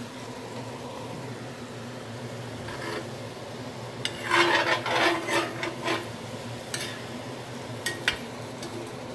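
Teriyaki chicken and broccoli in sauce sizzling in a frying pan. About four seconds in, a utensil scrapes and stirs against the pan for a couple of seconds, and a few light clicks come near the end.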